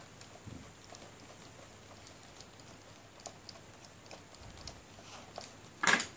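Small precision screwdriver turning a screw into a printer fuser unit's metal bracket, giving faint, irregular small clicks and ticks, with one louder knock near the end.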